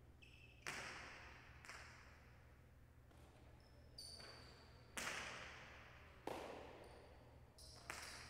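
Jai alai pelota striking the walls and floor of the fronton during a rally: about five sharp cracks, each trailing off in a long echo through the large hall.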